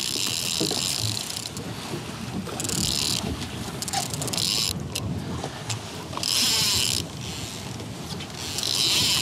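A fishing reel whirring in several short spells, from line being cranked in or pulled off, over steady wind noise on the microphone.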